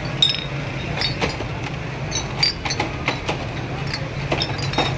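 Glass soda bottles clinking repeatedly, a dozen or so sharp clinks with a short high ring, over a steady low hum.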